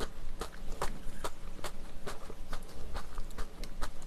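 Close-miked chewing of a mouthful of kimchi and jjajang rice: wet, smacking clicks of the mouth in a steady rhythm of about two to three a second.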